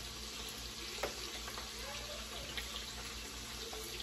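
Metal spoon scooping brown sugar out of a plastic container, a few light clicks, about a second in and again later, over a steady hiss.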